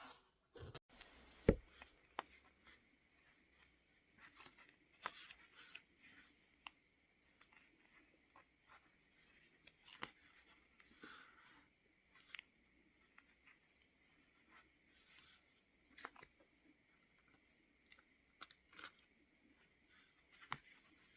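Quiet hand-sewing sounds on quilted cloth: soft rustling of fabric and thread with scattered small clicks and taps, the sharpest tap about a second and a half in. A faint steady high tone runs underneath.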